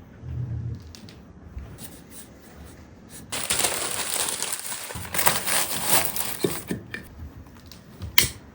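Paper being crumpled and crinkled by hand, a few seconds of dense crackly rustling, as when laying a fire. A brief sharp sound comes near the end.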